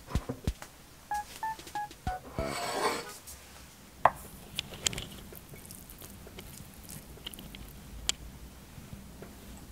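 A quick run of four short electronic beeps, then a brief rushing burst. After that, scattered light clicks and taps of wooden chopsticks against a ceramic bowl as noodles are picked up.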